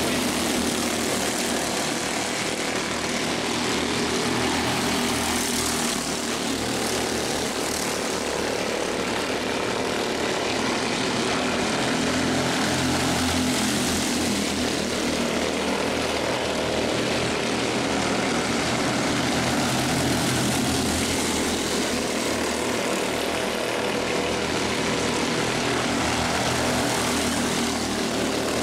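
A field of Mini Cup race cars running laps on an oval track: a steady, continuous engine drone that swells and eases a little as the cars come round.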